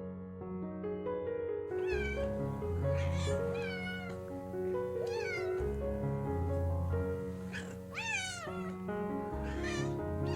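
Young cat mewing: a string of about ten short high-pitched mews, each falling in pitch, starting about two seconds in, over background music.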